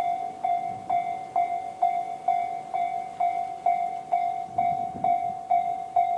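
Japanese railway level crossing's electronic warning bell, Tobu 'sound C' type, ringing steadily at about two strikes a second. Each strike is a bright single tone that rings on until the next. It is the signal that the crossing is closing for an approaching train.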